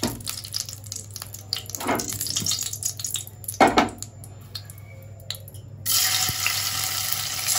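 Paneer cubes going into hot vegetable oil in a kadai, breaking into a steady frying sizzle about six seconds in. Before that the oil is quieter, with a couple of short louder knocks.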